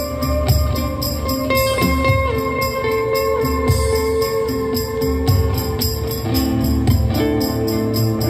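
Live instrumental music in an ambient, acoustic style: long held notes that move in steps over a quick, even beat of light percussion, about four strokes a second.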